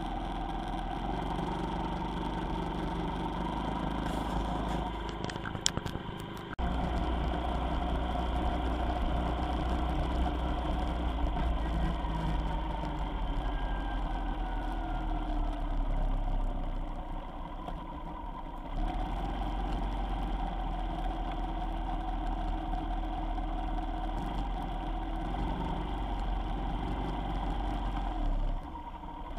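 A vehicle on the move, its engine note rising and falling with speed over a steady deep rumble. A brief clatter comes about six seconds in, and past the middle the engine drops quieter for a couple of seconds before picking up again.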